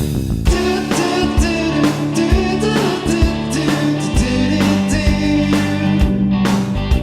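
Background music with singing and a steady beat.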